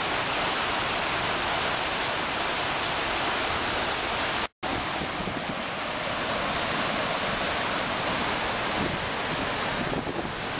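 Whitewater cascade of a rainforest creek rushing over boulders: a steady, dense rush of water. It cuts out for a split second near the middle, then carries on.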